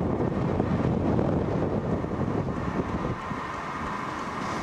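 Gusting wind buffeting the camera microphone: a rough low rumble that eases a little about three seconds in.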